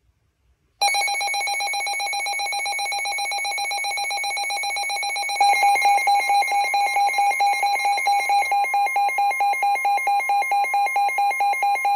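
NOAA weather radios sounding their alert alarm for a severe thunderstorm warning: rapid, high electronic beeping starts about a second in. About halfway it gets louder as a steady high tone joins the beeping.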